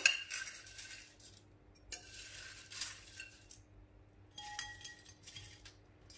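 Light clinks and taps of a glass bowl and metal tongs against a ceramic bowl as fried chicken pieces are tipped in and arranged, with a brief rustle of the crisp coated chicken sliding.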